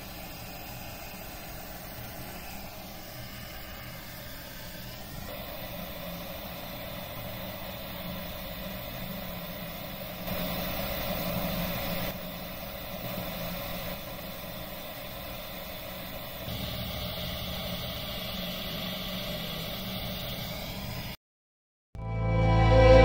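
Steady hiss of a gas soldering torch flame heating brass chain links. The level steps up and down a few times. Near the end it cuts off to a moment of silence, and music begins.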